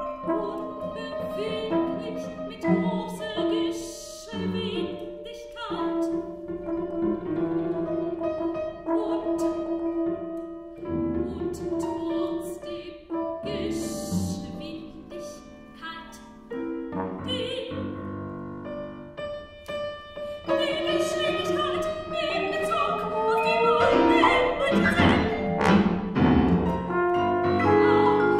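Contemporary chamber music played live: bowed cello with metal percussion (vibraphone and crotales), held notes broken by bright struck accents. It grows louder and busier in the last third, with sliding pitches.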